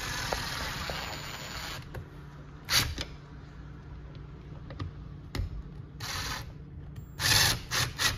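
Ryobi cordless drill driving screws into the wall to fix a garage door opener's wall control: one run of about two seconds at the start, then short trigger bursts, several in quick succession near the end as the screw is snugged down.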